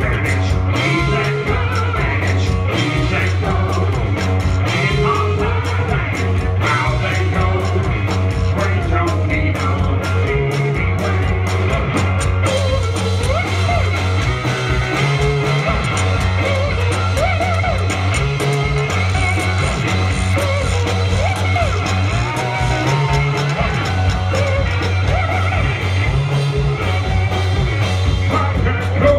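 Live band playing: guitar, washboard and drum kit together at a steady beat, with singing over them.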